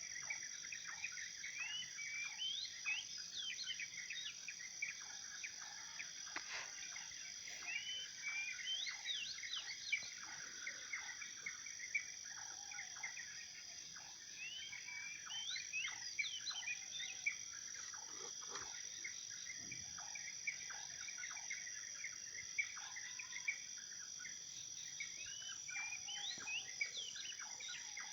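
Birds chirping in clusters of quick rising and falling calls every several seconds, over a steady high-pitched insect drone.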